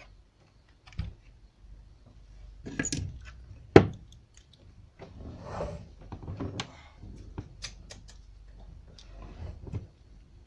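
Handling noises at a workbench: scattered sharp clicks and knocks of small tools and parts being picked up and set down, the loudest a single knock a little under four seconds in, with stretches of rustling in between.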